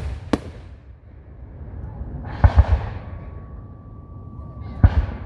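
Fireworks going off in sharp booming bangs: one right at the start and another a moment later, a quick run of three about two and a half seconds in, and two more near the end. A thin, steady high whistle sounds from about three seconds in.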